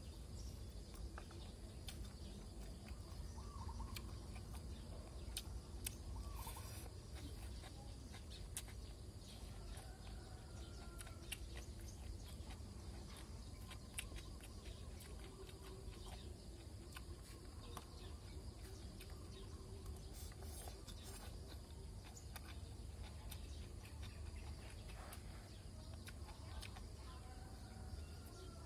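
Faint outdoor background with a steady low rumble, a few faint bird chirps, and scattered small clicks of eating: a plastic spoon on a foam food box and chewing.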